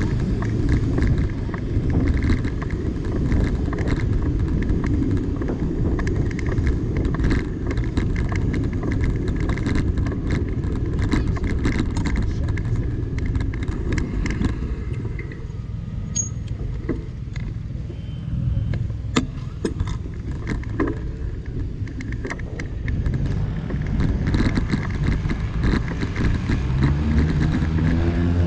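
Wind buffeting the microphone and road rumble from riding along a city bike lane, with rattling clicks throughout. It eases off for several seconds around the middle, then builds again, and a rising hum comes in near the end.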